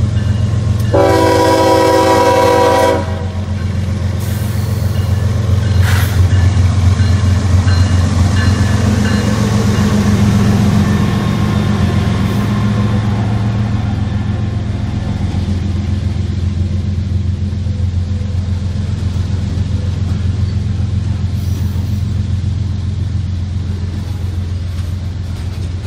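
Norfolk Southern diesel freight locomotives passing close by, their engines rumbling steadily. About a second in, the lead locomotive's horn sounds one chord-like blast of about two seconds, and a short sharp click comes a few seconds later. Then the loaded freight cars roll past on the rails.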